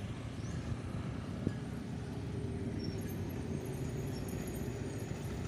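Motorcycles running past on the road, a steady low engine rumble with a faint even hum.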